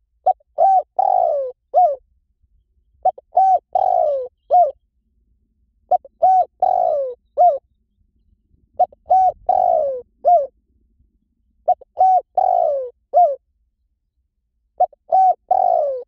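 Spotted dove cooing: a phrase of about five coos, with a longer, falling coo in the middle, repeated six times at steady intervals of about three seconds.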